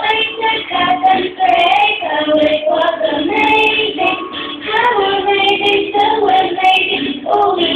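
A child's voice singing a melody over the music of a children's song.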